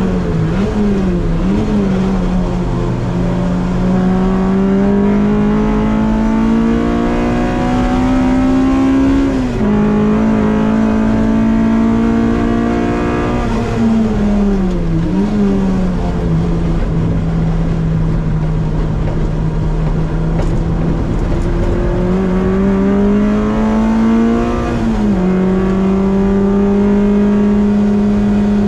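Honda Civic's B-series VTEC four-cylinder heard from inside the cabin under hard track driving, revs climbing slowly in the gears. There is a sudden drop at an upshift about a third of the way in, falling revs with a quick blip on a downshift around halfway, a steady stretch, then a climb with another shift near the end.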